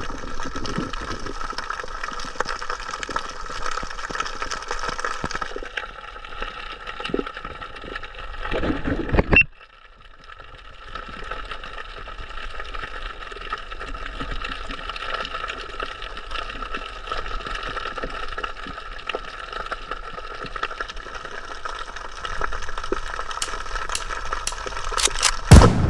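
Muffled water noise picked up by a camera in a waterproof housing while diving in the sea. It swells just before breaking off sharply about nine seconds in, then resumes, with a few sharp clicks near the end.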